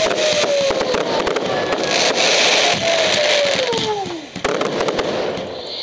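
Fireworks display: dense crackling and popping from bursting shells and stars, with two long whistles sliding down in pitch. After a last sharp bang about four and a half seconds in it thins to a fainter hiss.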